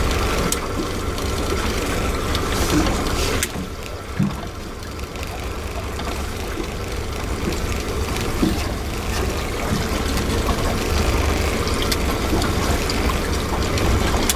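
Steady low rumble of a small fishing boat with water lapping against it, and a few light knocks about half a second and three seconds in.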